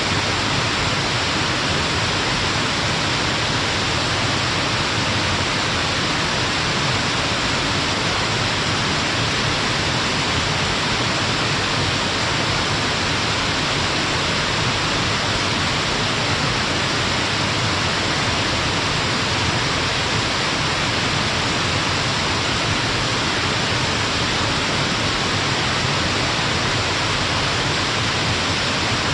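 Stepped waterfall on a mountain river: water cascading over rock steps in a steady, unbroken rush, strongest in the high hiss.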